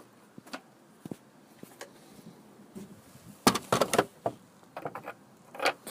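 Scattered light clicks, then a quick run of sharp knocks and rattles a little past halfway and a few more near the end, as of hard parts being handled.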